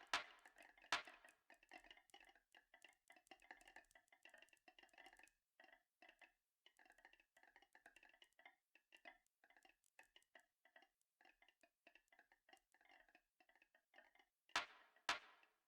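Marbles clicking and rattling along a marble run: a fast, irregular stream of faint clicks, with a few louder clacks at the start and twice near the end.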